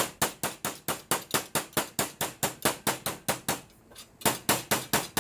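A hammer tapping aluminum in a fast, even run of light strikes, about five a second, with a brief pause near four seconds in before the tapping resumes.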